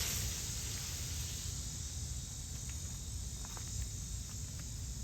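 Battered fish deep-frying in oil: the sizzle fades within the first second or so to a softer steady hiss, with a few faint pops of the oil scattered through the rest.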